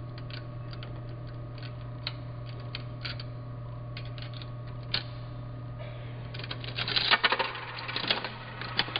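Coins clicking one by one into a Sugarloaf vending machine, then a louder run of rapid clattering from the machine about six to eight and a half seconds in as it dispenses a prize. A steady low hum runs underneath.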